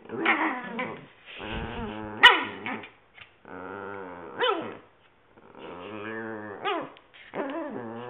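Papillon and another small dog play-wrestling: growling in stretches of about a second, over and over, with a sharp yip roughly every two seconds.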